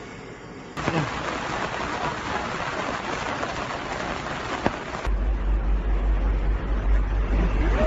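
Steady hiss of heavy rain and rushing floodwater, cutting in abruptly about a second in. From about five seconds a deep, loud low rumble joins it.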